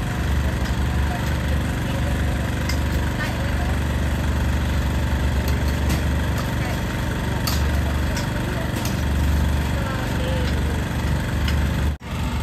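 A steady engine hum at idle, under a background of crowd voices. The sound drops out briefly near the end.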